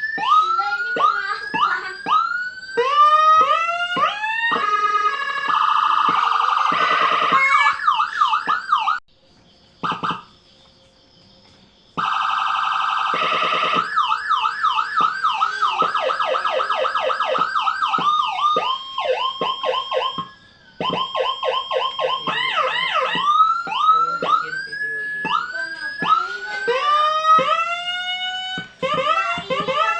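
Electronic siren module (Whelen HHS HF1 type, 60-watt amplifier IC) cycling through its tones. It starts with quick rising whoops, then a fast warble, then a brief drop to a faint high tone. After that come falling sweeps and a two-tone high-low alternation, ending on rising whoops again.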